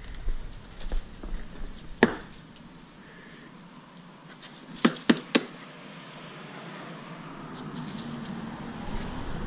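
Handling knocks and clicks while working on the car's radiator area: a sharp knock about two seconds in, three quick sharp clicks about halfway through, scattered small ticks, and a faint rushing noise that builds near the end.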